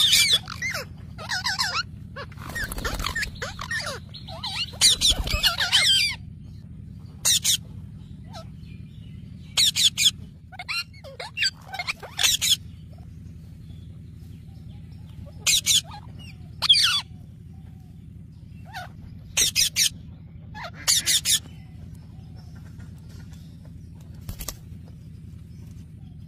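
Parrots squawking and chirping in short harsh calls, a dense flurry at first and then scattered calls with pauses between, over a steady low hum.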